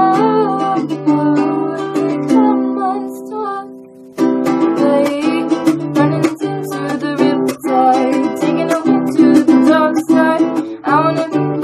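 A woman singing along to a strummed ukulele. The music fades about three seconds in and comes back abruptly with strumming and singing just after four seconds.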